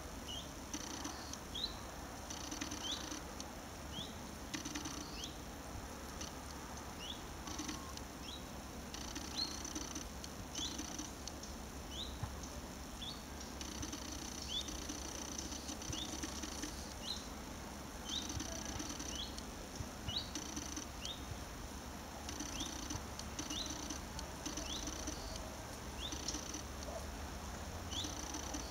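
Short rising chirps repeating about once a second from an unseen animal, with softer low notes now and then and a steady low hum underneath.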